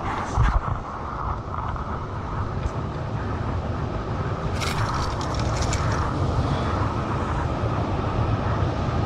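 Surf breaking on a cobble beach, a steady low rumble with wind on the microphone, slowly growing louder. About five seconds in, a short run of sharp clicks and rattles.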